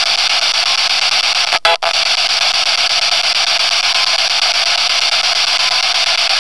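Steady hiss of radio static, broken by two brief dropouts about one and a half seconds in.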